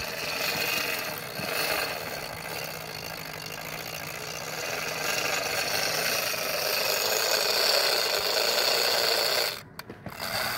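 Avet conventional big-game reel running with a steady mechanical whirring rattle as a hooked fish is fought; it cuts off abruptly near the end.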